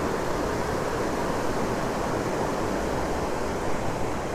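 Creek water rushing steadily over a rocky riffle, a constant even rush.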